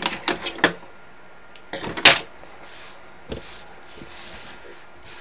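Hands moving craft supplies about on a tabletop: a few quick clicks and knocks in the first second, a sharp rustle about two seconds in, then softer rustling.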